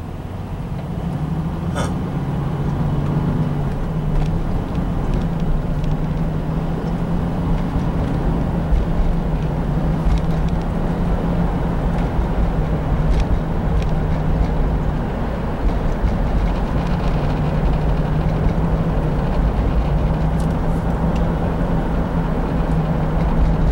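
1997 Chevy Blazer's 4.3-litre V6 and road noise heard from inside the cab as the truck drives. The hum rises over the first few seconds as it picks up speed, then settles into a steady cruise.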